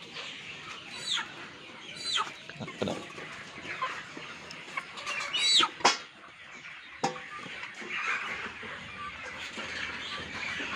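Kampung chickens clucking, with several sharp, high squawks that fall in pitch, the loudest about five and a half seconds in, and a single sharp knock about seven seconds in.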